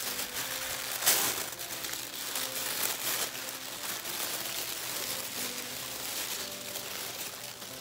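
Tissue paper rustling and crinkling as hands unwrap a package, with one sharp loud crackle about a second in.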